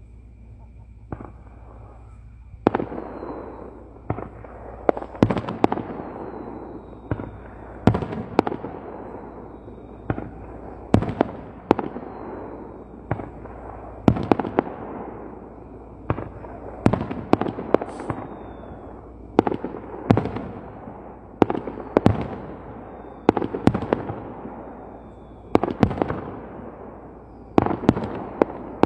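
Aerial fireworks shells bursting in quick succession. Sharp bangs come about once a second from about three seconds in, each trailed by an echoing rumble.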